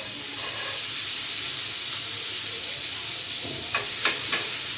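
Freshly washed popcorn kernels sizzling steadily in hot oil in a frying pan, with a few light clicks near the end.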